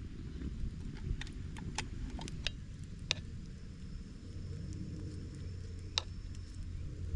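A metal spoon clicking and scraping against a metal mess tin and a hot sandwich pan as chijimi batter is scooped out and pressed into shape: a scattering of light metallic clicks, the sharpest about three seconds in and again at six seconds, over a low steady rumble.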